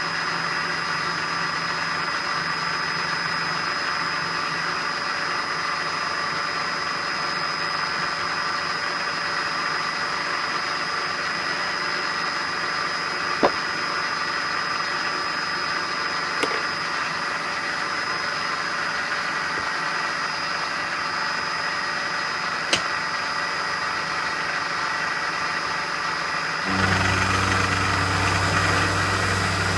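Metalworking machine tool running steadily with a constant high whine, a few sharp ticks in the middle; near the end a lower hum joins and the sound gets louder.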